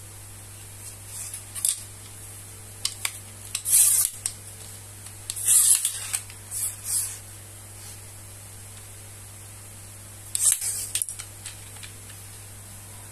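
Insta360 carbon-fibre-look invisible selfie stick handled in the hands, its knurled locking collars and sections twisted: short scratchy, clicking handling noises in several bursts, over a steady low hum and hiss.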